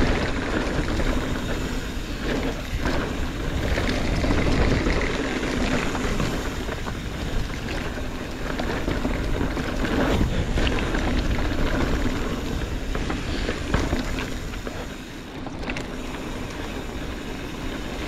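Hardtail mountain bike rolling fast over dirt singletrack: a steady rush of tyre noise and wind on the microphone, with occasional knocks and rattles from the bike as it hits bumps.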